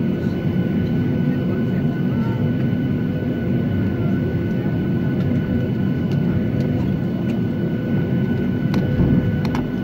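Jet airliner cabin noise while taxiing after landing: the turbofan engines run at low power as a steady rumble with a thin steady whine on top, and a few faint clicks near the end.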